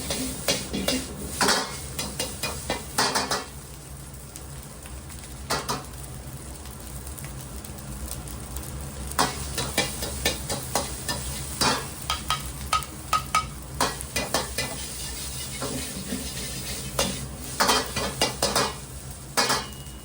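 Fried rice being stir-fried in a hot pan: a metal utensil scrapes and clanks against the pan in quick clusters while the rice sizzles, over a steady low hum. The clanking eases off twice and then picks up again.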